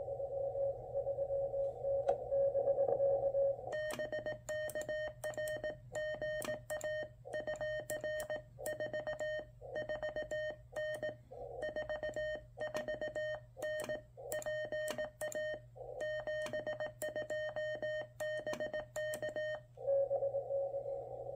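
Venus SW-3C QRP transceiver on CW. It opens with a received Morse tone over band hiss. From about four seconds in, its own transmit sidetone beeps out Morse code: a buzzier, slightly higher beep with a click at each key-down and key-up. After about sixteen seconds it switches back to receiving, and the hissy received tone returns.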